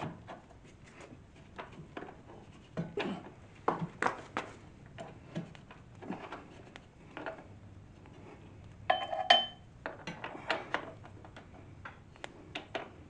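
Scattered metallic clicks, knocks and clinks of tools and metal parts as a motorcycle's front wheel spindle is worked out, with one louder ringing metal clink about nine seconds in.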